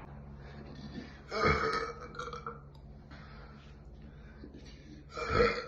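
A woman burping loudly twice, about four seconds apart, the second one near the end.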